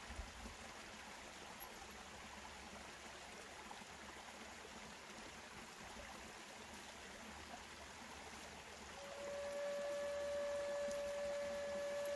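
Steady rushing background noise; about nine seconds in, a Native American flute begins one long held note.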